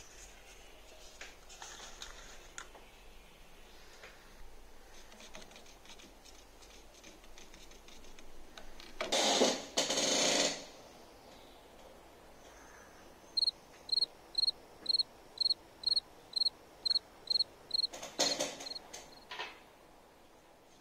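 Quiet room with two loud rushing noises about nine to ten seconds in. A run of about a dozen short high electronic beeps follows, about three a second, then another brief rush.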